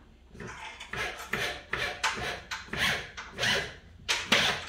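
Wooden board rubbing and scraping against wood in a run of short strokes, about two or three a second, as it is worked into place by hand.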